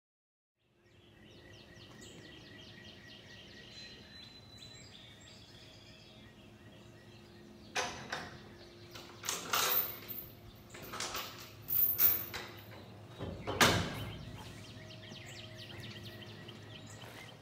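Outdoor ambience with small birds chirping in quick repeated notes over a steady background hum. Several loud, short noises break in between about 8 and 14 seconds in, and the last is the loudest.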